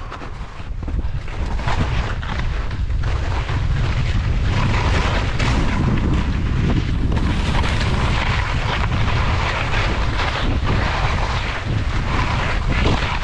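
Wind buffeting a GoPro action camera's microphone as a skier descends, a steady low rumble, with the skis hissing and scraping over the snow, louder from about four seconds in.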